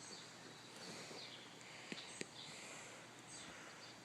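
Faint outdoor ambience with distant birds chirping now and then, and two soft clicks about two seconds in.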